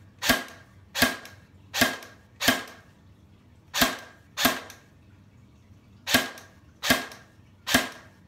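Snow Wolf airsoft Barrett, an electric gearbox-driven airsoft rifle, firing single shots on semi-auto: nine sharp shots, in a run of four about three-quarters of a second apart, then two, then three.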